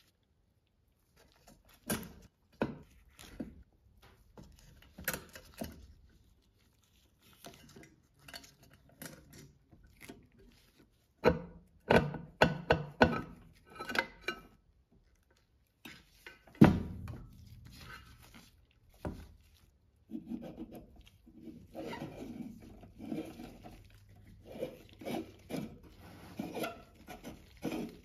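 Handling noise from a 1970s lamp's metal base and its wiring: irregular clicks, taps and rattles, with a few louder knocks as the base is shifted and knocked.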